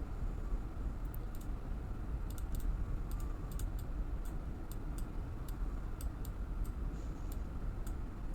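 Scattered light clicks of a computer mouse and keyboard at irregular spacing, a few a second, over a low steady background hum.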